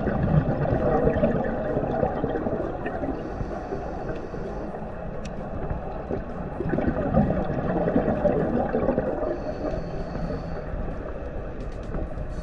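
Scuba diver breathing underwater through a regulator: exhaled bubbles gurgling and rumbling, alternating twice with a short hissing inhale.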